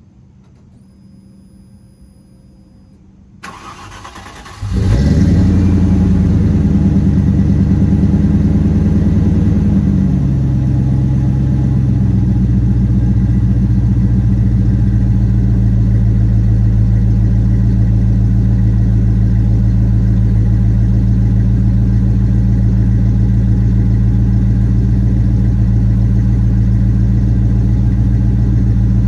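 Cold start of a 1995 Land Rover Defender 90's 3.9-litre V8: the starter cranks briefly and the engine catches about four and a half seconds in. It runs at a raised fast idle for a few seconds, then settles to a lower, steady idle about ten seconds in.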